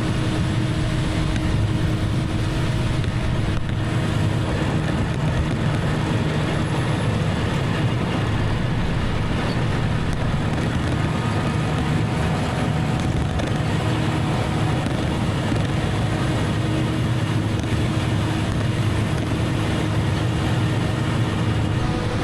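Farm mowing machine's engine and drivetrain running with a steady drone while it cuts rye, working hard in the damp crop.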